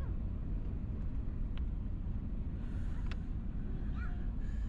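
Steady low rumble of an Airbus A380's engines and airflow heard inside the economy cabin on the approach, with a couple of faint clicks.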